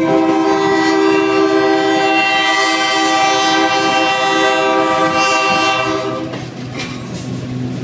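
Diesel locomotive's air horn sounding one long, loud blast of several notes together. It cuts off about six seconds in, leaving a lower steady hum.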